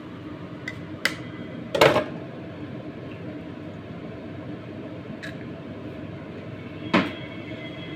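An egg knocked against a stainless steel mixing bowl and broken into it: a sharp knock about two seconds in, with lighter clicks around it and another knock near the end, over a steady background hum.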